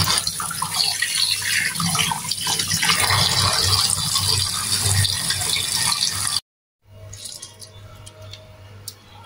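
Tap water running and splashing into a stainless steel sink as whole tilapia are rinsed and rubbed by hand. About six and a half seconds in it cuts off abruptly, and a much quieter stretch follows with a few small clicks and wet handling sounds of the fish being worked on a plate.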